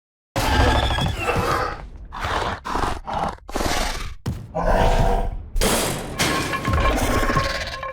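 Film sound-effect Baryonyx growls and roars: a run of about eight rough calls with short breaks between them, the last one the longest.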